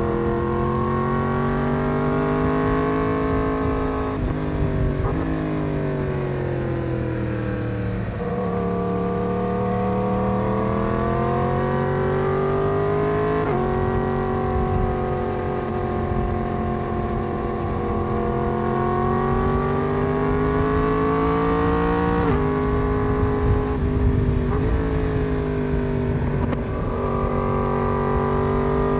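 Yamaha MT-10's crossplane inline-four engine running under way, its pitch climbing and falling as the throttle is rolled on and off. There are a few sudden steps and dips in engine speed.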